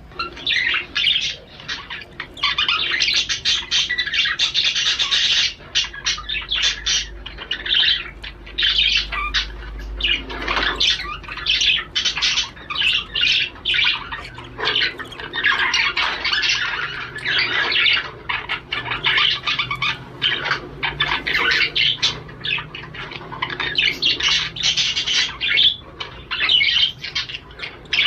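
Male budgerigar chattering and warbling in a fast, continuous stream of chirps and squawks: a male's courtship song.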